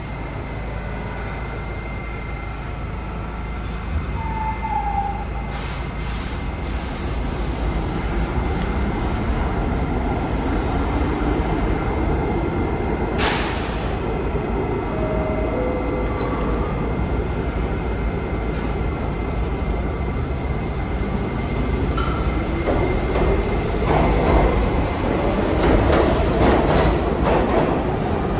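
New York City Subway train running over a steady rumble, with brief wheel squeals at several points and a short hiss about halfway. Near the end the rumble and rail clatter grow louder.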